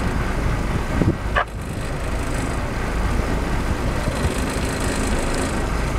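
Sportfishing boat's engines running steadily, a continuous low rumble with wind and water noise over it, and a single sharp click about a second and a half in.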